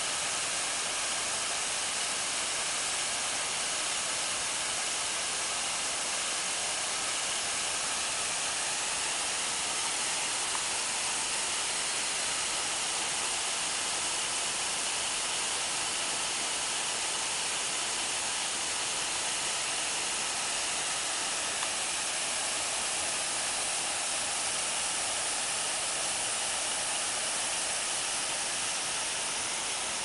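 Waterfall pouring over a rock ledge into a plunge pool: a steady, even hiss of falling water.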